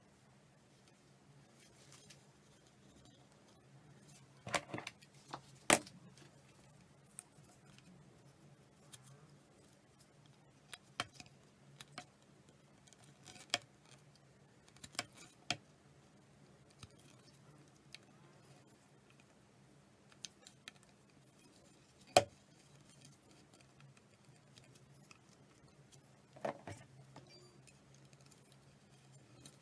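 Scattered clicks and knocks of handling: a tennis racket frame and small tools being moved about and set down on a cutting mat, the sharpest knocks about six seconds in and about twenty-two seconds in, over a faint steady low hum.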